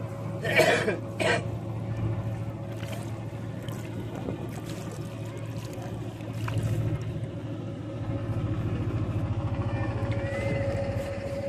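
A boat engine runs with a steady low drone that grows louder over the last few seconds. Over it a fine fishing net is hauled by hand from the water over a wooden boat's side, with a couple of sharp knocks and splashes about a second in.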